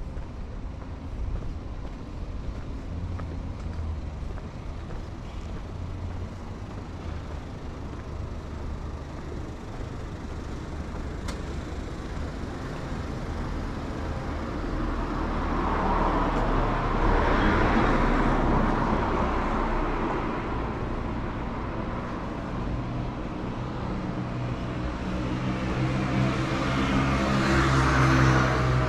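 Street traffic: a steady low rumble of road vehicles, with two vehicles passing close by, the louder swells building to a peak just past the middle and again near the end.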